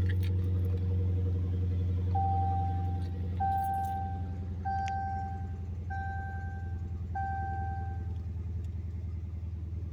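Dodge Challenger's engine idling steadily, heard from inside the cabin. From about two seconds in, the dashboard warning chime sounds five times, about a second and a quarter apart.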